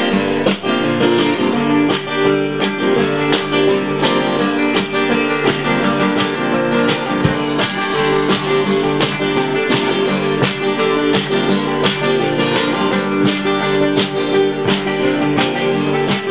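Live band playing a song's instrumental intro: strummed acoustic guitars over a steady beat of regular percussive hits.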